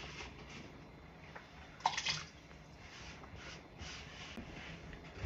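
Diced raw potatoes dropped by the handful into a pot of chicken broth: one clear splash about two seconds in, with fainter splashes after it.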